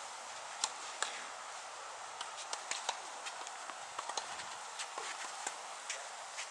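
Steady outdoor hiss of an open tennis court, with scattered short, sharp clicks and taps. Two louder ones come about a second in, and many faint ones follow.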